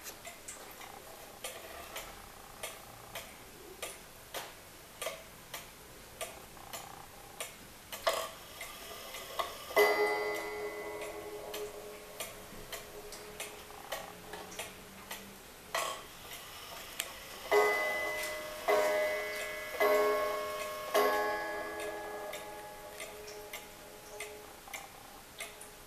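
Warmink weight-driven wall clock ticking steadily. Its striking train rings once about ten seconds in, then four times about a second apart a few seconds later, each note ringing out over the ticking.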